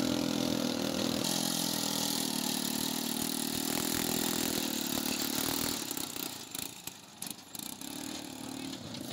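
Small engine of a homemade mini tractor running steadily while it pulls a loaded trolley. The engine fades after about six seconds as the tractor moves off.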